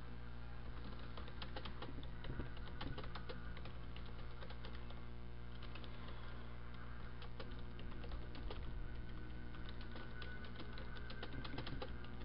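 Computer keyboard typing in quick runs of key clicks, with short pauses between runs, over a steady low electrical hum.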